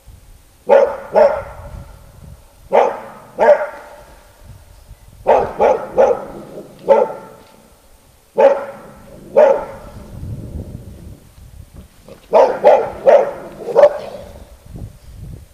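A dog barking loudly, about a dozen barks in clusters of one to four, with pauses of a second or two between the clusters.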